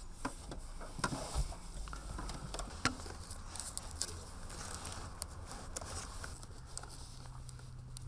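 Scattered small clicks and rustles of hands handling a child car seat's fabric cover, plastic shell and belt straps while fitting a cabled sensor pad under the seat, over a low steady hum.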